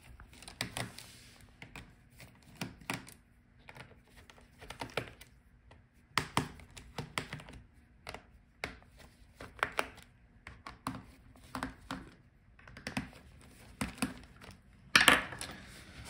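Small screwdriver working the bottom-cover screws of a laptop: irregular sharp clicks and light scraping of the tool against the screws and case, in short clusters, with a louder clatter near the end.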